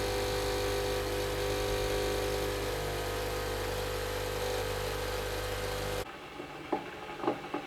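Philips Senseo pod coffee machine humming steadily while it pumps hot water through the pod for a strong double brew, then cutting off abruptly about six seconds in as the brew finishes.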